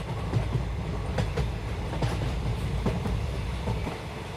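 Passenger train running on the rails, heard from inside the coach: a steady low rumble with irregular clicks from the wheels passing over rail joints.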